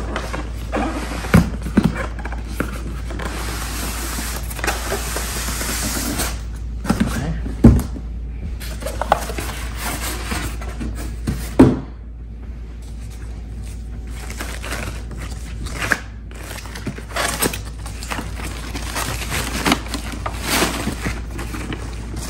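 Unpacking a boxed monitor: cardboard and polystyrene foam packing scraping and rustling as the monitor is slid out of its box, with three sharp knocks. Near the end the plastic bag around the screen crackles as it is pulled off.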